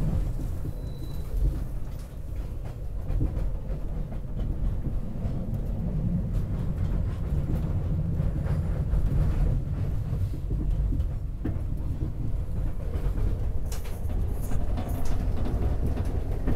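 SEPTA Market-Frankford Line train car running at speed, heard from inside: a steady low rumble of wheels and running gear, with a clatter of wheels over rail joints that grows busier near the end.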